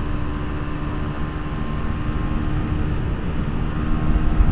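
Honda BeAT scooter's single-cylinder engine running at road speed, with wind rushing over the helmet-mounted microphone; steady hum, getting louder with more low rumble near the end.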